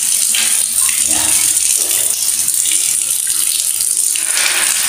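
Water running steadily in a tiled bathroom during a flood test, which checks that the water drains to the floor drain.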